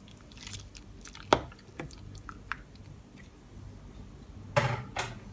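Spätzle boiling in a stainless steel pot of water, with wet bubbling and a slotted spatula stirring through them. A few sharp knocks break in, the loudest about a second before the end.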